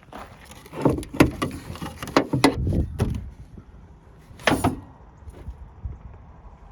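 A run of clunks and knocks over about two seconds, then one more sharp knock about four and a half seconds in, like a vehicle door or panel being handled.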